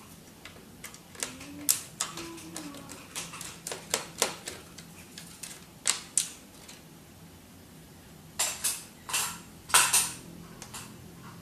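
Irregular plastic clicks, taps and knocks from the casing and parts of an HP F2410 all-in-one printer as it is handled and pried apart during disassembly, with a louder run of clicks near the end.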